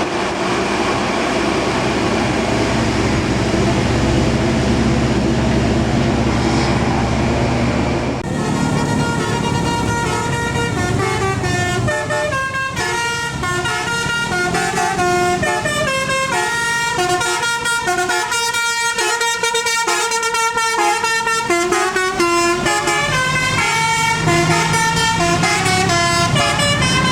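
A bus engine runs close by for about eight seconds. Then a telolet basuri multi-tone horn plays a quick melody of short chord-like notes, which carries on to the end.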